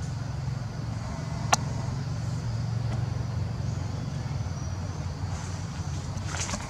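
A steady low motor drone, like an engine running at a distance, with one sharp click about a second and a half in.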